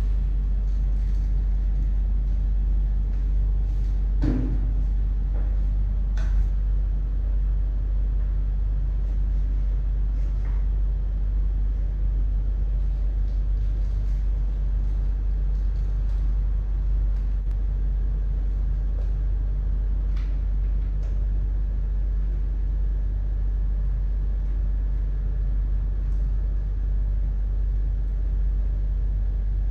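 A steady low rumble, with a few faint clicks and taps as a seatpost and saddle are handled and fitted into a road bike's frame.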